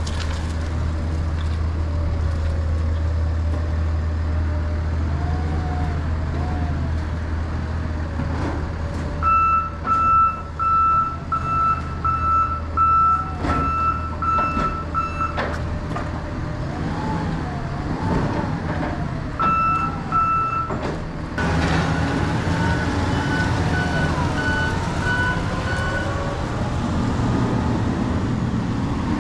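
Forklift engine running and revving as it loads lumber onto a flatbed trailer, its backup alarm beeping about one and a half times a second in three spells as it reverses: a long run of about nine beeps, two beeps, then fainter beeps near the end.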